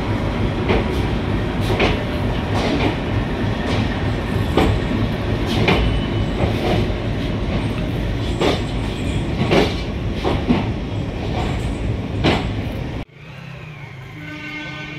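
Passenger train running, heard from inside the coach: a steady rumble with repeated sharp clacks of the wheels over rail joints. The sound cuts off abruptly near the end, giving way to much quieter background sound.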